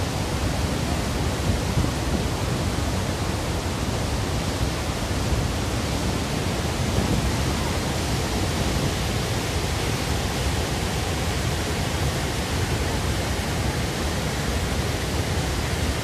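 Steady, unbroken rush of a large waterfall pouring heavily over rock into a churning pool.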